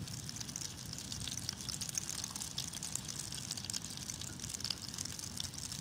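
Potato bread pieces frying in a pan of hot oil: steady sizzling with a dense, fine crackle of spattering oil.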